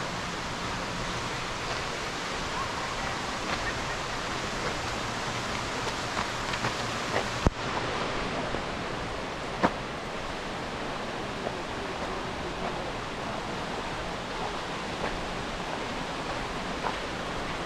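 Steady rush of Lower Latourell Falls, water plunging straight down from an overhanging basalt cliff, heard as an even roar. Two sharp clicks come near the middle, about two seconds apart.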